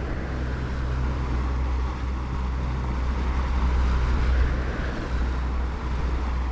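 Steady engine and road rumble of a vehicle driving, heard as a constant low hum under an even noise.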